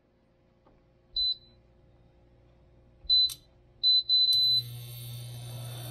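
Induction cooktop's touch-control panel beeping as its buttons are pressed: three short high beeps, then a longer one. A steady hum with a high whine sets in with the last beep as the hob switches on and starts heating the pan.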